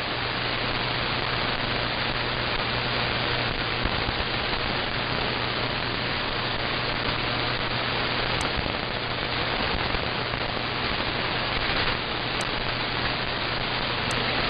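Steady static and hiss from an AM shortwave web receiver tuned to 2430 kHz, the third harmonic of Radio El Espectador's 810 kHz signal, with a low steady hum underneath. The station's voice has faded into the noise.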